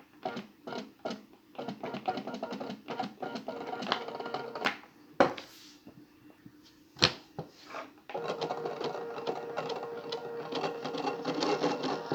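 Stepper motor turning a 3D-printed plastic worm drive: short stop-start moves, about two to three a second, then two sharp clicks, and from about eight seconds in a steady run with a constant whine.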